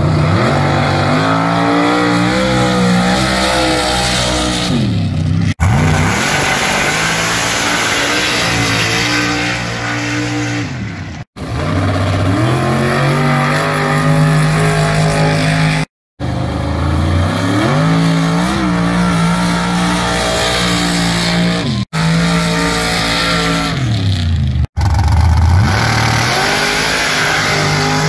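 Race engines of sand drag trucks on paddle tires launching and accelerating hard down a sand track, the pitch climbing through each run as the tires sling sand. Several separate runs follow one another, each breaking off abruptly.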